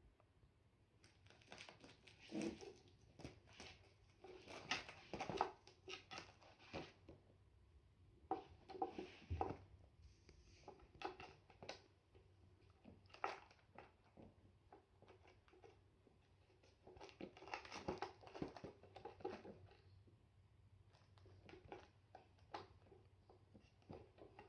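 A kitten shoving its head against and under a wicker toy cart on a towel and mat makes soft, irregular rustling and scuffing in short clusters with brief quiet gaps.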